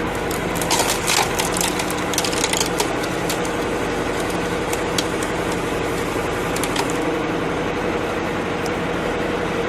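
An engine-driven log splitter running steadily while logs crack and split, with a cluster of sharp cracks in the first few seconds and a few more later.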